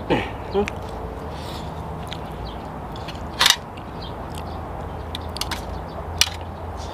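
Close-up eating sounds: a person chewing food with small mouth clicks. A spoon and fork tap against a stainless-steel tray, sharply about three and a half seconds in and again near the end.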